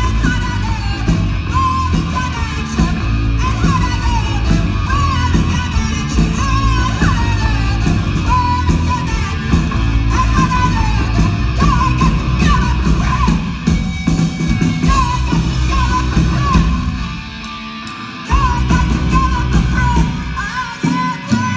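Punk rock band playing live through a PA: electric guitar, bass and drums, with a woman singing and yelling into the microphone. Near the end the band drops away for about a second, then comes back in.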